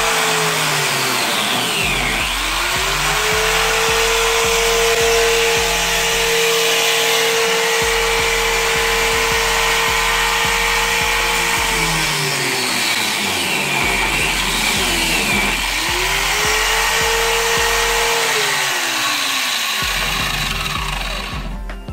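4-inch angle grinder running and grinding the crimp rings off PEX pipe fittings. Its whine sags and climbs back up a few times as it is pressed into the work and eased off, and it winds down near the end.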